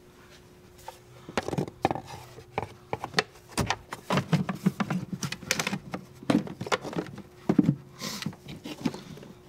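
Irregular plastic knocks, clicks and scrapes as the air filter housing and its rubber intake duct are pushed and wrestled into place, starting about a second in.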